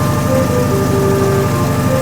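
Toshiba ZABOON top-loading washing machine running through its cycle: a steady low motor hum with a fast pulsing beneath it and a few held tones that step up and down in pitch.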